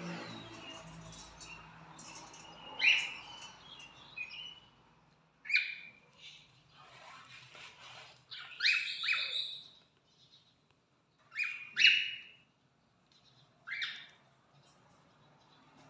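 Pet cockatiels chirping: short, sharp calls in bouts a few seconds apart, with a quick run of several chirps in the middle.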